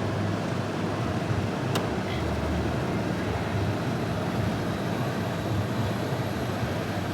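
Vintage GM Frigidaire 18,700 BTU room air conditioner running: a steady rush of air from its fan over a low hum, with the compressor on and the unit blowing cold. A single sharp click about two seconds in.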